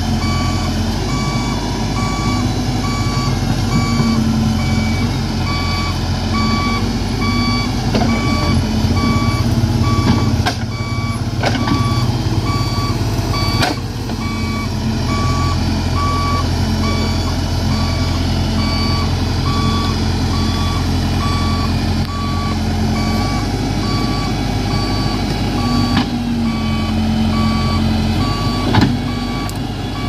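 Case backhoe loader's diesel engine running, its note shifting up and down as the machine works, with its backup alarm beeping in steady, evenly spaced pulses. A few sharp knocks come through in the middle and near the end.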